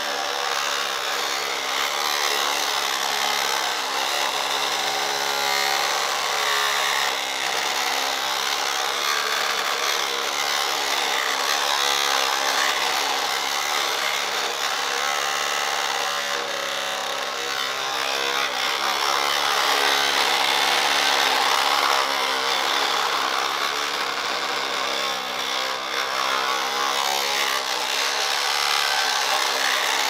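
Small electric drive motor and gears of a 1:20-scale Double E RC road roller whining steadily as the toy drives slowly across dirt, the pitch wavering slightly as it moves.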